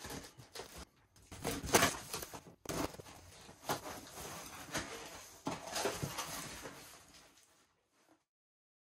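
Cardboard shipping box being opened by hand: the packing tape is slit and the flaps pulled back, with irregular scraping, rustling and sharp cardboard clicks. The sound cuts out abruptly near the end.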